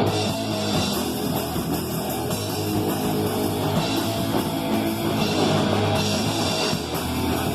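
Rock band playing, with drum kit and guitar.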